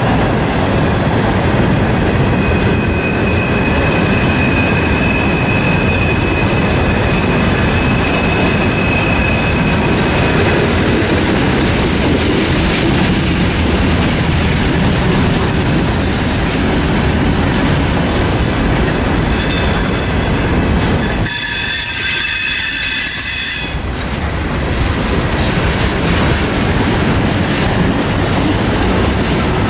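Freight train cars rolling past close by: a steady rumble of steel wheels on the rails, with a thin wheel squeal through the first ten seconds and a sharper, many-toned squeal about twenty seconds in.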